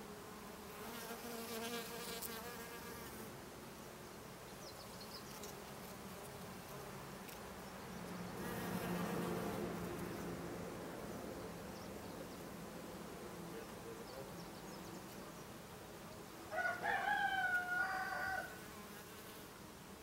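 Honeybees buzzing steadily, the buzz swelling around nine seconds in as a bee passes close. Near the end a louder, wavering call lasts about two seconds over the buzz.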